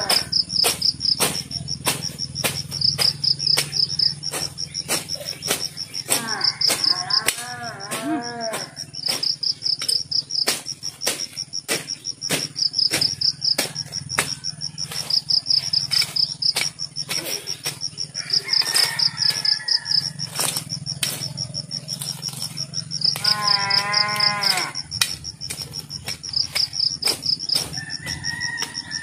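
Crickets chirring steadily in a high pulsing trill, with sharp clicks about twice a second. A few times an animal calls in a long cry that wavers in pitch.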